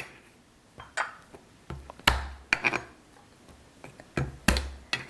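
Irregular knocks and clinks of dishes and utensils being handled and set down on a kitchen counter, about eight in all, some with a dull thud and a short ring.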